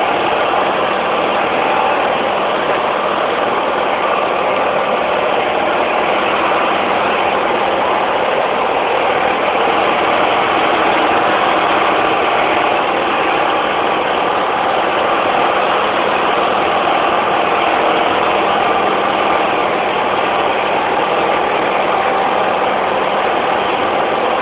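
18-horsepower opposed-twin engine in a John Deere LT133 lawn tractor running steadily while the tractor drives along.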